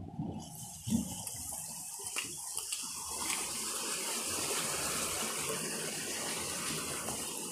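Water gushing steadily through a concrete sluice gate of a fish pond, growing louder and steadier after the first few seconds. A couple of thumps near the start.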